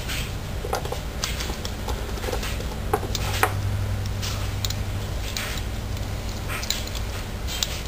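Irregular small metallic clicks and taps as an Allen key is worked in a set screw on a paintball regulator's metal body, turning the screw in.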